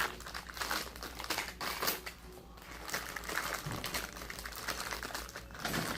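Plastic packaging crinkling as it is handled, an irregular run of crackles.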